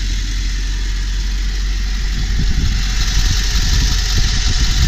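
Ford box truck's 7.3-litre Power Stroke turbo-diesel V8 idling with a steady rumble, getting slightly louder about halfway through.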